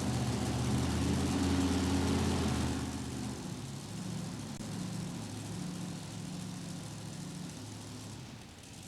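Engine of a modified pulling tractor running, loud for the first three seconds and then steadier and quieter.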